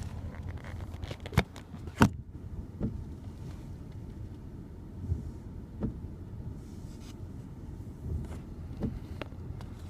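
Low, steady rumble of a car heard from inside the cabin, broken by scattered sharp knocks and clicks, the loudest about two seconds in.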